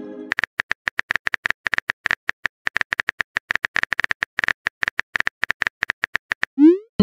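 A rapid, uneven string of short, high electronic beeps, like a text-typing or dialogue-blip sound effect. Near the end a quick rising swoop leads into a brief chord.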